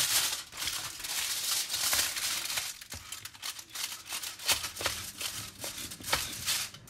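Aluminium foil crinkling and rustling on a baking tray, with scrapes and light clicks of a knife as a freshly baked pizza is cut and handled.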